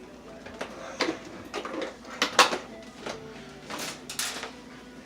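Packaging and parts being handled while unboxing an RC truck: a handful of short rustles and knocks, the loudest about two and a half seconds in.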